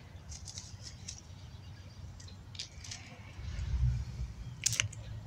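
Dry fallen leaves crackling and rustling in scattered short crackles, the sharpest one about three-quarters of the way through, over a low rumble that swells briefly past the middle.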